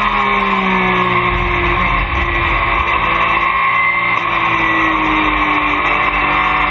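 Porsche race car's engine heard from inside the cockpit through a corner, its note falling slowly twice as the revs drop. A low rumble from the car underneath grows louder about a second in.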